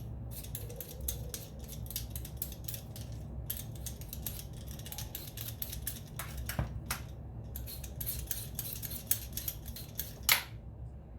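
A potato being peeled by hand: a blade scraping off the skin in many quick, repeated strokes, with a sharper, louder stroke about ten seconds in.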